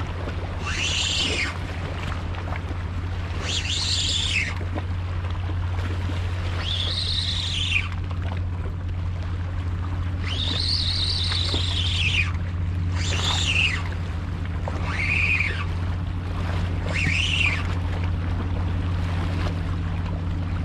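Fishing reel whining in a series of high sweeps, each rising then falling in pitch, about every two seconds while a hooked fish is played on a bent rod. A steady low rumble lies underneath.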